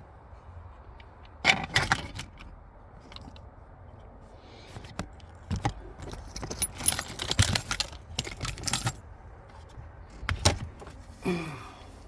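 Small metal objects clinking and rattling as they are handled, in several short bursts of clatter with separate clicks in between.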